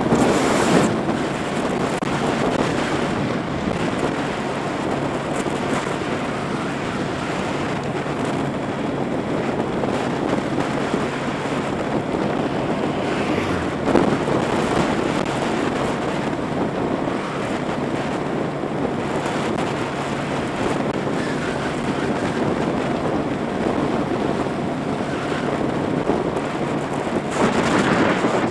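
Wind rushing over the action camera's microphone on a moving motorbike, with the bike's engine running as a steady low hum underneath. The wind gusts louder about a second in, again about halfway through, and near the end.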